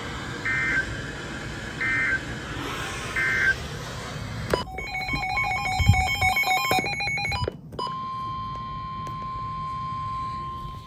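Emergency Alert System signals from NOAA Weather Radio. Three short warbling data bursts about a second apart mark the end-of-message code of the warning just read. A few seconds of rapidly switching digital header tones follow for the next alert. About two-thirds of the way in, the steady single-pitch 1050 Hz warning alarm tone starts.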